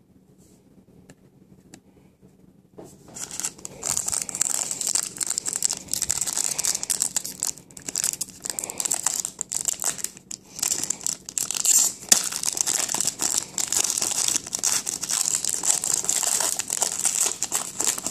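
Foil wrapper of a trading-card pack being torn open and crinkled, starting about three seconds in and going on in rapid, crackly bursts.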